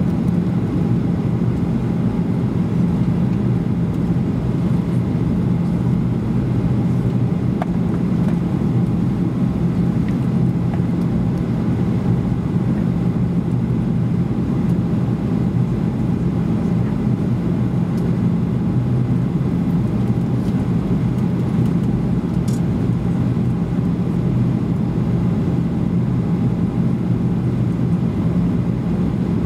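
Steady cabin noise inside a Boeing 737-800 on approach with flaps extended: the rush of air and the low drone of its CFM56-7B turbofans, with a steady low hum and a fainter higher tone underneath.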